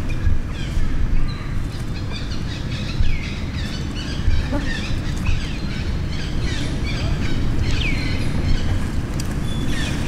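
Many short, high-pitched animal chirps, several of them sweeping downward, over a steady low rumble.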